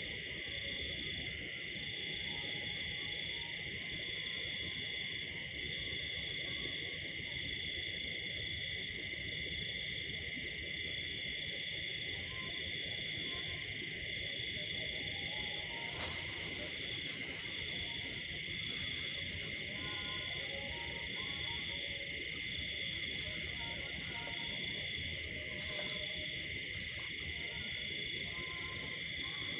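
Night chorus of insects: several steady shrill trills layered at different pitches, one of them pulsing in an even rhythm, with scattered short lower calls and a single sharp click about sixteen seconds in.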